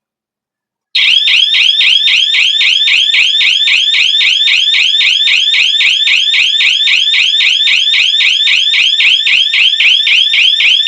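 Built-in electronic siren of an emergency-exit door alarm panel starting about a second in: a loud, fast repeating whoop of rising chirps, about four a second. It is the alarm going off once the set delay after the door was opened has run out.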